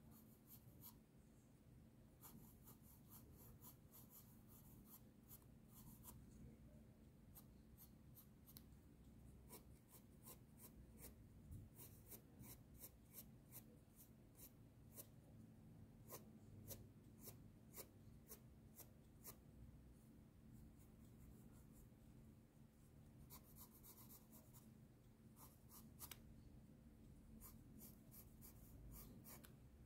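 Faint scratching of a Marco Raffine Sketch graphite pencil on sketchbook paper: runs of quick, short sketching strokes, with a lull about two-thirds of the way through.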